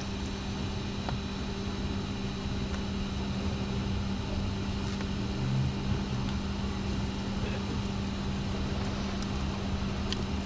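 Steady machine hum with a low drone, like a motor or fan running, with a few faint clicks.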